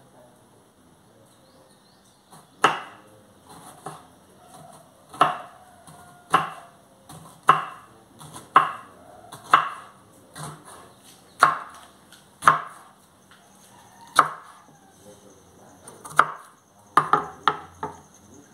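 Kitchen knife chopping jalapeño peppers on a wooden cutting board: sharp single knocks of the blade against the board, starting a few seconds in and coming roughly once a second, with a quick run of several near the end.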